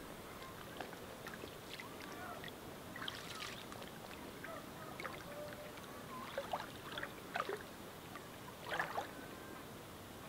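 Faint splashing and sloshing of legs wading through shallow lake water, in irregular steps, with louder splashes about three seconds in and several more in the second half.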